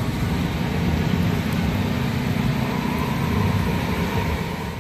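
A steady low mechanical rumble with an even hiss over it, as of a motor or burner running without pause.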